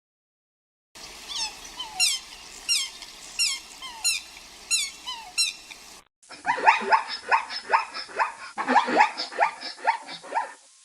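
Animal calls: first a string of high, squeaky calls that fall in pitch, one about every two-thirds of a second, then after a cut a faster, denser run of short falling calls.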